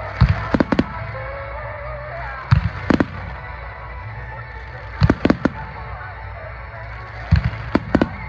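Aerial fireworks bursting in quick clusters of sharp bangs, a group about every two to two and a half seconds, over a steady low rumble.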